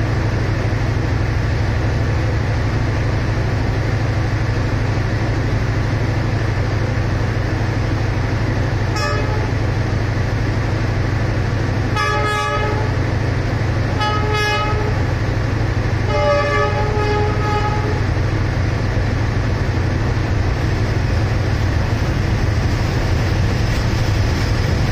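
Diesel locomotive idling with a steady low rumble, while a train horn sounds four times near the middle: a faint short toot, two short blasts, then a longer blast.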